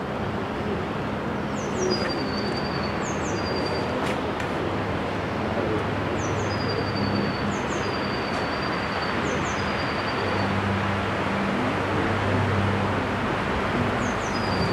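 BR Standard Class 9F 2-10-0 steam locomotive No. 92203 'Black Prince' drifting slowly in, a steady rumble and hiss that grows a little toward the end. Over it a small bird sings a short phrase again and again: two quick high notes falling, then a lower trill.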